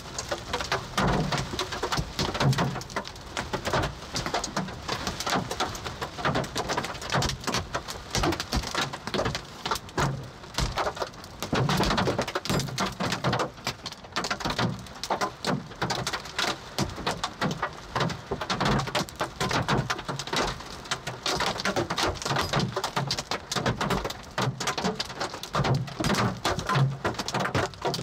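Large hail and rain pounding on a Subaru Crosstrek's roof and windshield: a dense, unbroken clatter of strikes with heavier stones landing as deeper thuds every few seconds.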